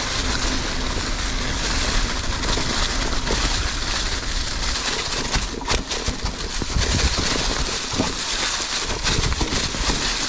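Mountain bike rolling down a singletrack deep in fallen leaves: steady rush of tyre noise over the leaves and wind on the microphone, with scattered knocks and rattles from the bike over roots and rocks.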